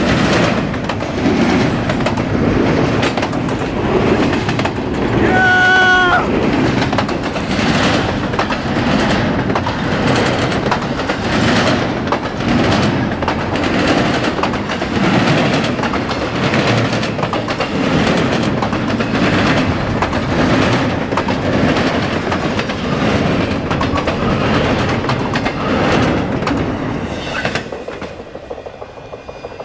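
Double-stack intermodal freight train passing close by: a steady rumble and clatter of steel wheels over the rails. A brief high ringing tone comes about six seconds in. The sound fades as the last car goes by near the end.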